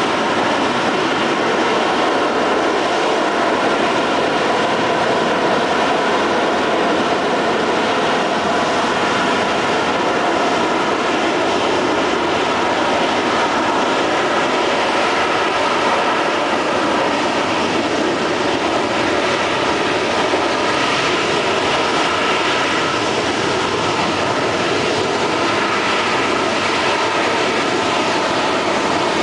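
AV-8B Harrier's Rolls-Royce Pegasus turbofan running at hover power as the jet hovers: a loud, steady jet roar with a whine of several tones through it.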